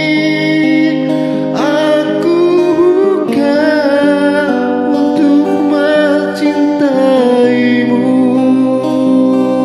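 A man singing long held, wavering notes into a microphone over guitar accompaniment.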